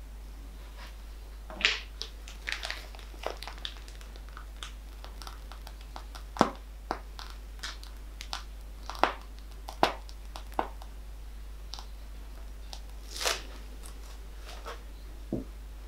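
Plastic piping bag crinkling in the hands as whipped cream is squeezed out, heard as a scatter of short, irregular crackles and clicks.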